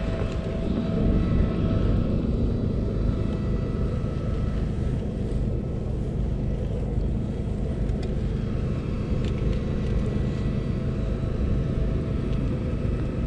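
A motor running steadily: a continuous low rumble with faint, steady whining tones above it.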